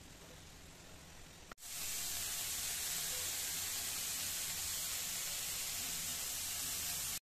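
Egg curry gravy sizzling and bubbling in a pan as a steady hiss. It is faint at first, jumps louder after a sudden cut about one and a half seconds in, and stops abruptly near the end.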